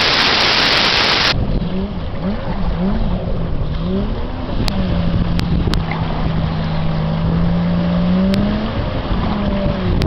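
An engine running, its pitch wavering up and down and then holding steady for a few seconds, over a low rumble of wind on the microphone. It opens with a loud burst of hiss lasting just over a second.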